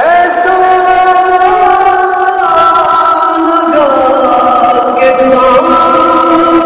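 A male voice singing a naat, holding long drawn-out notes that step slowly from one pitch to another.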